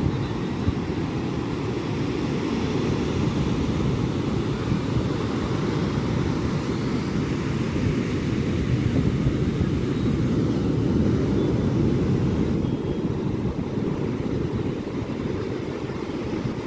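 Sea waves breaking on a beach, heard as a steady rumble of surf that slowly swells and eases, with heavy wind buffeting the microphone.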